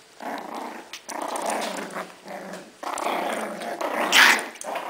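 Six-week-old bichon frise puppies growling in play as they wrestle together, in rough bouts, with one louder, sharper cry about four seconds in.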